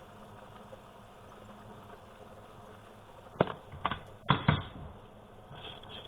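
Four sharp clicks and knocks in quick succession about three and a half seconds in, from tools and parts being handled on a Keychron mechanical keyboard while a faulty switch is replaced.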